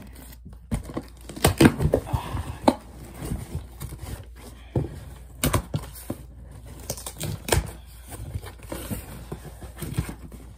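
Cardboard shipping box being handled and pulled open: irregular scrapes, taps and knocks, with tearing of tape and cardboard.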